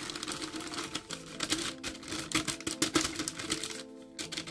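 Plastic flour bag crinkling and rustling in quick, irregular crackles as it is handled and tipped to pour flour, with soft background music underneath.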